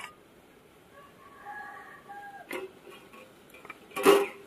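Steel kitchenware being handled: a click and a few light ticks, then a louder short metal clink with a brief ring near the end, as rice batter is put onto the oiled steel plate in the steamer.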